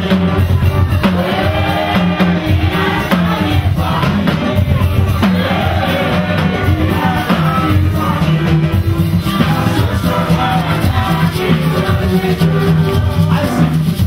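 A choir and congregation singing a lively worship song over drums and a steady bass line.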